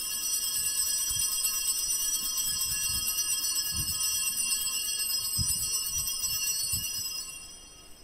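Altar bells rung in a steady, shimmering peal of many high ringing tones, fading out near the end. At Mass this ringing marks the elevation of the consecrated host.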